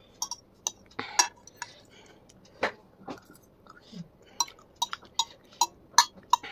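Metal fork clinking and scraping against a plate: a run of sharp, separate clinks that come faster in the last couple of seconds.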